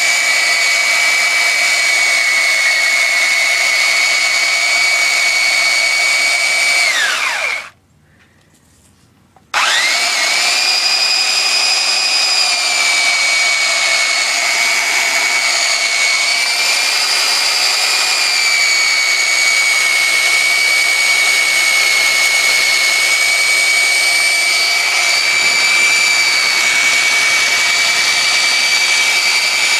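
Belt sander running with a steady high whine while steel held in locking pliers is ground against its moving belt. About seven seconds in the motor winds down to near silence. It starts again about two seconds later, its pitch climbing quickly back to the steady whine.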